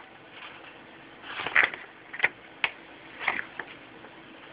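Box packaging being handled while unpacking: a scatter of short rustles and clicks, a few each second through the middle.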